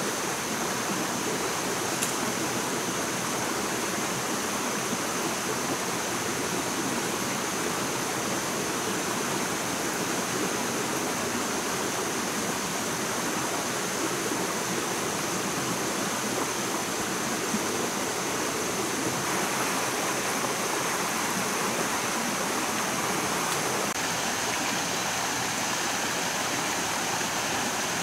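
Steady rushing of water that does not change, with a thin, constant high tone above it.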